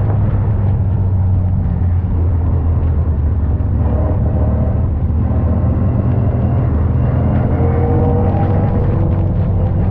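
MGA race car's four-cylinder engine heard from onboard, running steadily at low revs with a deep, even drone and only small changes in engine speed.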